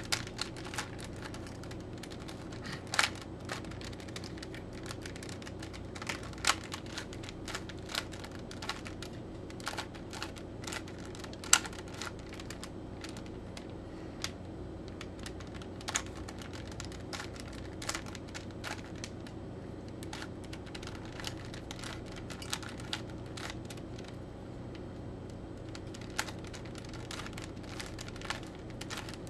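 Rubik's Cube layers being twisted by hand: irregular plastic clicks and clacks as the faces turn, over a steady low hum.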